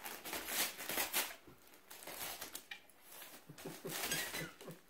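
Dog tearing and crinkling wrapping paper off a small gift with its mouth, in short irregular bursts of rustling.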